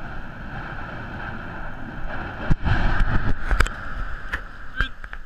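Yasur volcano erupting: a steady low rumbling roar, then about halfway through a sudden explosive blast followed by several sharp cracks over the next two seconds.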